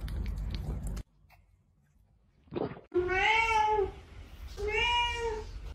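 A cat meowing twice at a closed door: two drawn-out meows about a second each, each rising then falling in pitch.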